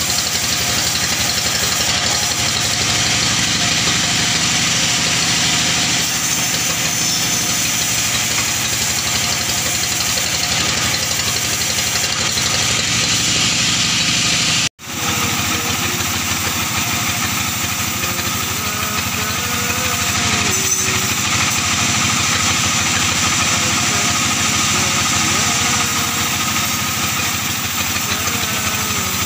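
Sawmill saw running steadily and cutting a log into boards, a continuous machine drone with the rasp of the blade in the wood. The sound drops out for an instant about halfway through.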